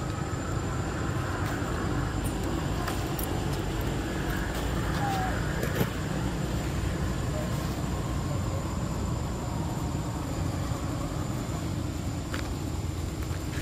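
Steady low outdoor rumble with scattered faint ticks and a thin, steady high whine above it.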